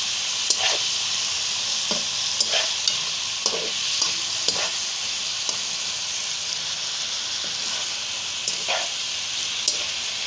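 Boneless chicken pieces with soy sauce and tikka masala sizzling steadily in a pan, simmering in the water the chicken has released. A metal spatula scrapes and clinks against the pan several times as it stirs, mostly in the first half.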